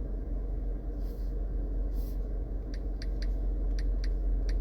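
A steady low hum with a handful of light, sharp clicks spread through the second half, the sort made while typing or tapping to look something up.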